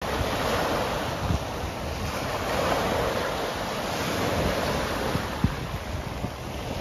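Small waves breaking and washing onto a pebble beach, with wind gusting across the microphone in low, uneven thuds.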